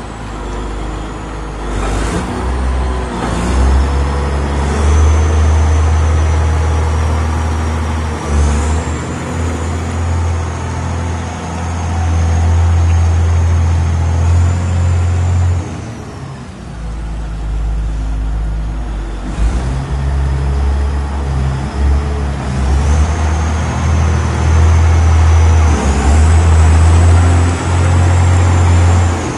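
CAT 16G motor grader's diesel engine running under a working test, its low drone swelling and easing with the load, with a faint high whine that steps up and down in pitch.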